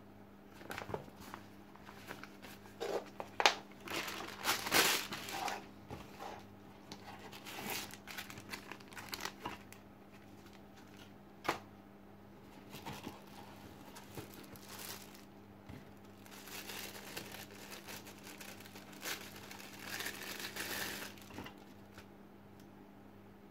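Lens packaging being handled: a nylon drawstring pouch rustling and plastic wrap crinkling in irregular bursts, with a sharp tap about eleven seconds in. A faint steady low hum runs underneath.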